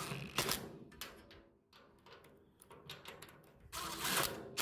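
DeWalt cordless impact driver running door-hinge bolts down snug in two short bursts, one at the start and one about four seconds in, with light clicks of the socket and bolts in between.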